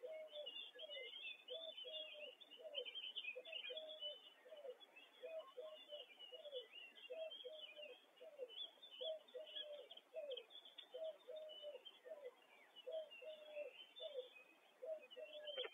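Faint dawn birdsong: a bird repeats a low two-part cooing call about once a second, with smaller birds chirping higher above it.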